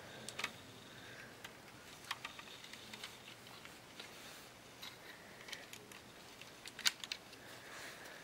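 Plastic Lego parts of a toy revolver clicking and knocking as the gun is handled and loaded. The clicks come scattered and irregular, the loudest a little under a second before the end.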